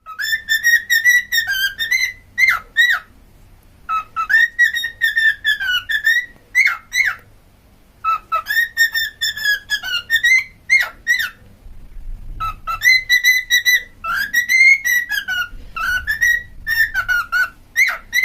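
Pet cockatiel whistling a learned tune. It repeats the same warbling phrase of swooping and dipping notes four times, with short pauses between.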